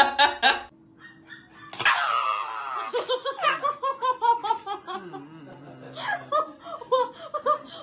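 A Shiba Inu crying out: one long high yelp that falls in pitch, then a quick run of short, high cries, several a second.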